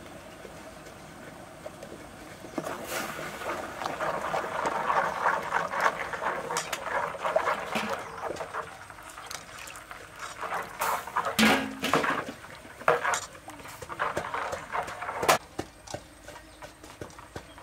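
Metal ladle stirring sauce in a stainless steel pot, the liquid swishing. In the second half come several sharp clinks of the ladle against the pot, the loudest near the end.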